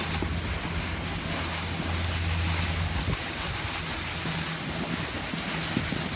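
Wind buffeting the microphone outdoors on a snowy slope: a steady low rumble under a constant rushing hiss.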